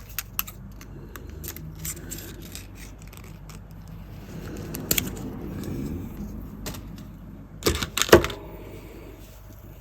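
A packaged bead strand being opened and handled: scattered light clicks of beads and small parts against each other, with soft rustling. There is a louder click about halfway through and a close pair of louder clicks near the end.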